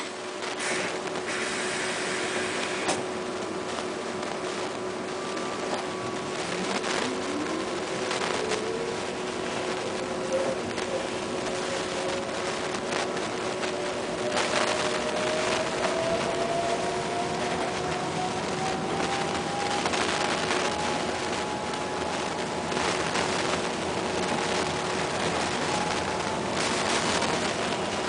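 Electric drive of a MAN Lions City Hybrid bus running with its diesel engine off, heard from inside: a tram-like whine that climbs in pitch as the bus pulls away, keeps rising slowly as it gathers speed, then levels off. A steady hum sits beneath it.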